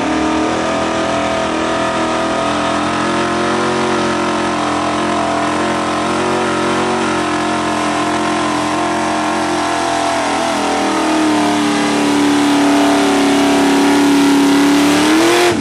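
Ford pickup truck's engine held at high revs under full load as it drags a truck-pull weight-transfer sled. It is a steady drone that climbs a little in pitch and loudness over the last few seconds, then cuts off suddenly.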